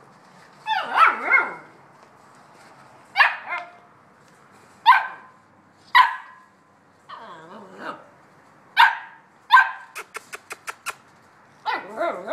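Young Bouvier des Flandres puppies, 7½ weeks old, barking in short, high yaps, one or two at a time with a few whinier drawn-out ones between. About ten seconds in there is a quick run of six sharp clicks.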